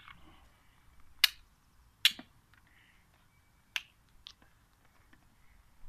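Four sharp plastic clicks over a few seconds as a plastic bottle is gripped and its screw cap twisted open; the first two are the loudest.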